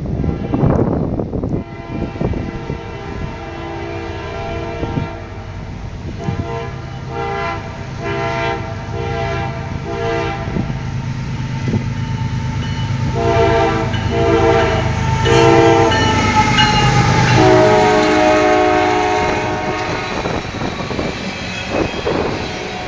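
BNSF diesel locomotive's air horn sounding a string of about six short toots, then three more and a longer blast whose pitch drops as the locomotive passes: a friendly horn salute from the crew. The locomotive's engine rumble grows underneath, and the freight cars clatter by near the end.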